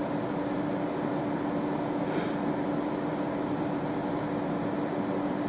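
Steady mechanical room hum with one constant low tone, and a short hiss about two seconds in.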